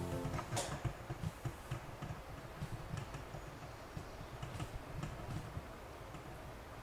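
Irregular soft thumps and small ticks from a handheld camera being moved around, over a faint hiss; they thin out toward the end.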